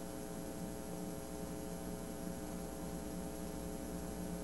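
Steady electrical hum with faint hiss: the background noise of the recording, with no other sound standing out.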